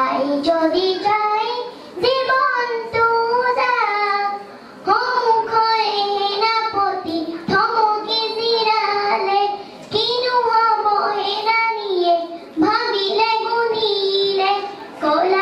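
A young girl singing solo into a handheld microphone: held, wavering notes in phrases of two to three seconds, with short breaks between phrases.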